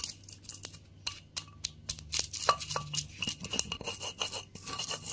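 Stone pestle crushing and grinding garlic, candlenuts, chilli and white peppercorns in a stone mortar (cobek and ulekan). It makes a quick irregular run of sharp cracks and scrapes, which grows denser in the second half as the spices break down into paste.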